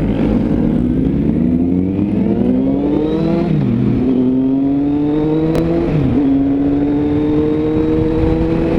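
Motorcycle engine accelerating through the gears: the pitch climbs, drops sharply at an upshift about three and a half seconds in and again about six seconds in, then climbs slowly once more.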